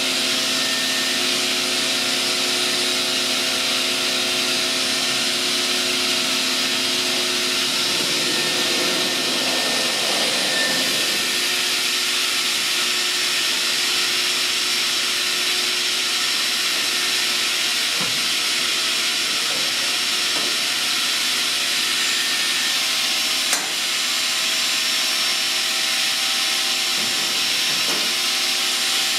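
Sliding-table panel saw running with its dust extraction on: a steady loud rush of air over a low machine hum, with one sharp knock late on.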